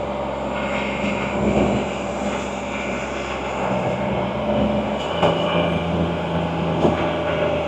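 Can-Am Spyder's engine running steadily on the move, over a rush of wind and road noise. The engine note steps down to a lower pitch about five seconds in.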